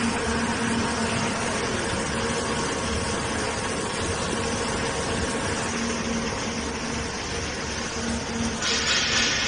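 Soap roller mill running steadily, a continuous mechanical noise with a low hum. A brighter hiss joins near the end.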